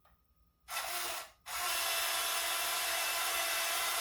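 A small electric motor whirs briefly, then runs steadily with a high, even whine.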